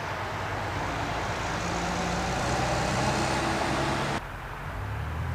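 Steady outdoor rushing noise with a low hum underneath; the higher part of the rush cuts off abruptly about four seconds in.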